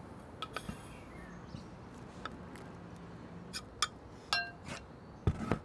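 Kitchen knife scraping chopped chilli and spring onion off a wooden chopping board into a ceramic mixing bowl: scattered light clicks and taps, a ringing clink of the bowl a little past the middle, and a dull knock near the end.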